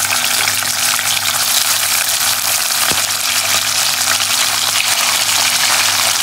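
Raw sliced chicken sizzling in hot oil in a frying pan with chopped ginger and garlic, a steady frying hiss just after the meat goes in. A single click about three seconds in.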